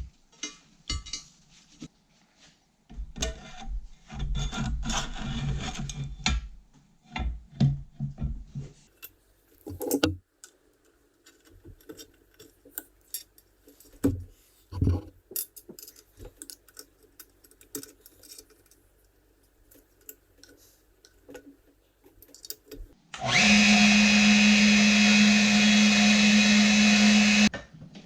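Knocks and clatter of handled workshop parts, then a power tool runs steadily for about four seconds near the end with a strong hum, stopping suddenly.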